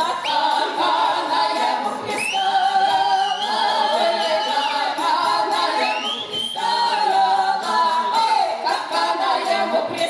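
A women's Cossack folk ensemble singing in close harmony, holding long notes that slide up into the next pitch.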